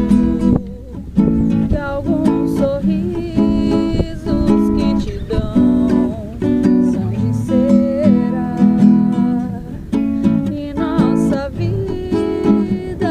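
Acoustic guitar strummed in short, choppy reggae chords, with a solo voice singing the melody over it.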